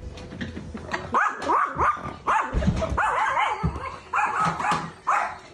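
A dog barking and yelping excitedly in a rapid series of short high yips, with a heavy thump about two and a half seconds in.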